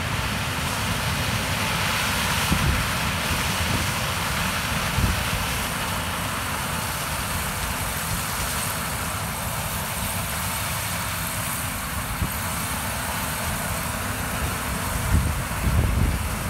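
John Deere S680 combine running steadily while harvesting corn with its row-crop corn head: a constant diesel engine and threshing drone. A few low thumps come near the end.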